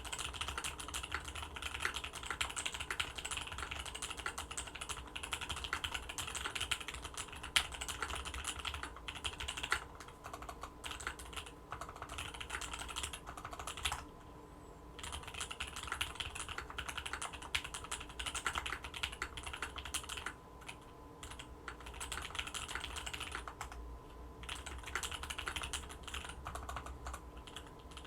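Fast typing on an Orion V3 custom mechanical keyboard with Tealios linear switches and an FR-4 plate: dense runs of keystrokes, broken by brief pauses a few times.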